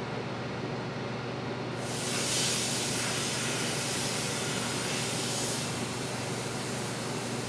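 Microwave oven running with a steady hum. About two seconds in, a sudden loud hiss of steam escaping from the pressurised plastic water bottle lasts about four seconds, then eases back.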